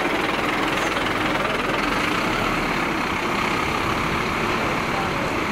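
Diesel engine of a Scania aerial ladder platform fire engine running steadily as the truck drives past close by.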